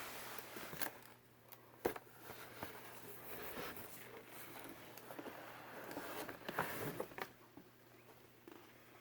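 Scattered rustles, light clicks and knocks of packaging and a mask being handled during an unboxing. A faint steady low hum runs underneath.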